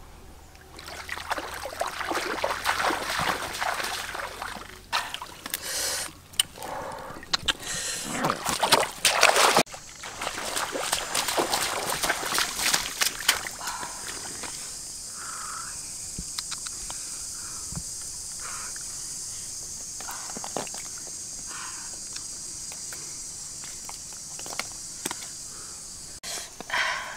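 Water splashing and sloshing as someone wades and moves about in a shallow muddy pond. After about ten seconds this gives way to a steady high-pitched insect drone, with a few light splashes and squelches in wet mud.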